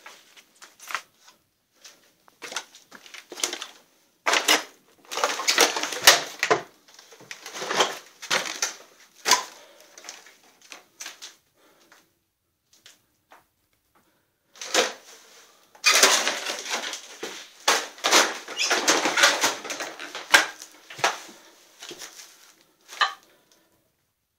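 Footsteps crunching and scraping over debris on a floor, with scattered knocks and clicks. Two longer stretches of dense crackling come about four seconds in and again from about fifteen seconds.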